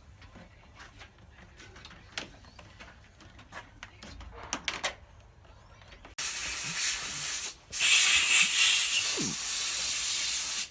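Faint clicks and knocks, then a loud, even hiss that starts suddenly about six seconds in, breaks off briefly about a second and a half later, resumes, and cuts off abruptly.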